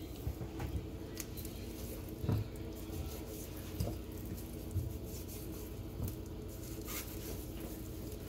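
Soft, scattered wet handling sounds of whole raw fish being rubbed with dry seasoning and set down, with a few light knocks, the loudest about two seconds in, over a steady low hum.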